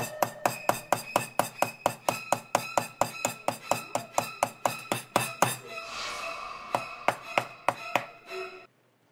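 Kitchen knife chopping rapidly through boiled pork hocks onto a cutting board, about five even strokes a second. After about five and a half seconds the strokes grow sparser, and they stop shortly before the end.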